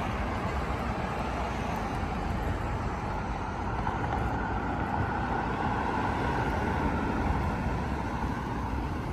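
Steady road traffic noise from cars driving past on a busy multi-lane road.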